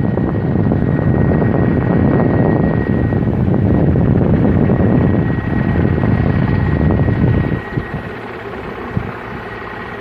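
Wind buffeting the microphone in a loud, rough rumble, with a thin steady high tone underneath. The rumble eases off about eight seconds in.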